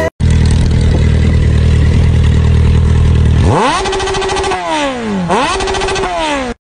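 Motorcycle engine sound effect: it idles steadily for about three seconds, then revs up, dips and revs up again in rising and falling pitch.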